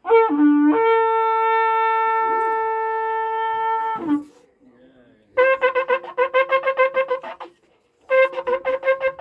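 Shofar (ram's horn) blowing: a brief break of pitch at the onset, then one long held blast lasting about four seconds. After a short pause come a run of rapid staccato notes, about five a second, and near the end another rapid run that starts into a held note.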